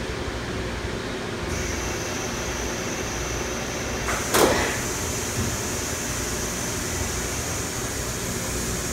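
Thermoforming machine cycling: steady machinery and air noise, a thin high whine that comes in about a second and a half in, and a short loud burst of air hiss about four seconds in while the mould table rises.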